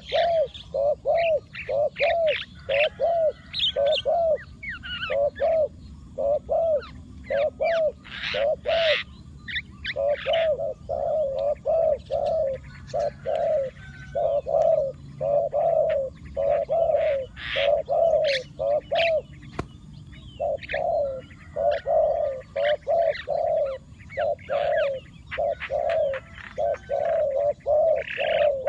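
A decoy spotted dove cooing to call in wild doves, in a long even series of short low notes, about two to three a second, with a brief pause about nine seconds in. Small birds chirp at a higher pitch over it.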